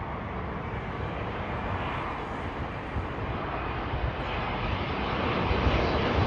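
Jet engines of a Boeing 787 airliner on final approach, a steady rushing noise that grows louder as the plane comes closer.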